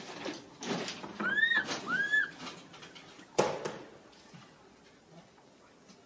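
Baby macaque giving two short whistle-like coo calls, each rising then falling in pitch, about half a second apart, amid light scuffing. A single sharp knock about three and a half seconds in is the loudest sound.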